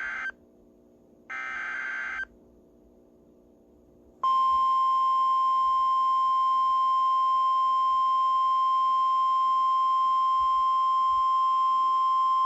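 NOAA Weather Radio EAS alert: the tail of one short, harsh digital SAME header burst and then another about a second later, followed, about four seconds in, by the loud, steady single-pitch 1050 Hz warning alarm tone. Together they signal the start of a new severe thunderstorm warning.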